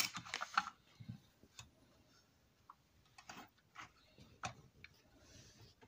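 Irregular light clicks and taps of handling, a dozen or so with quiet gaps between them, as a phone camera is shifted about and objects on a table are touched.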